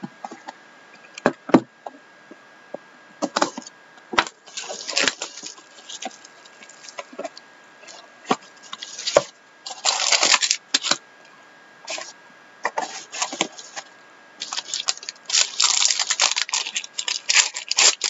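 A cardboard trading-card box being handled and opened, with scattered clicks, taps and scrapes. In the last few seconds a clear plastic pack wrapper crinkles as it is pulled open around the cards.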